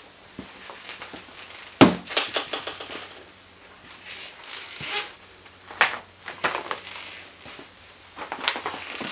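A heavy metal thunk as a ribbed metal military container is set down on a concrete floor, with a short rattle after it. Several lighter knocks and scuffs of gear being handled follow.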